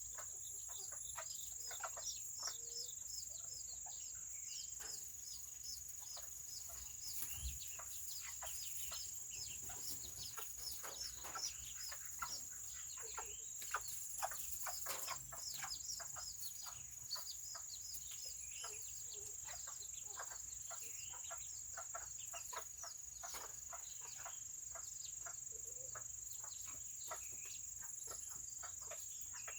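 Serama chickens calling: a steady stream of short, high, falling peeps, several a second, with the odd cluck.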